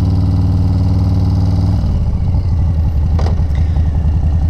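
Motorcycle engine running steadily under way, then dropping in pitch about two seconds in as the throttle comes off, settling into a lower, pulsing rumble.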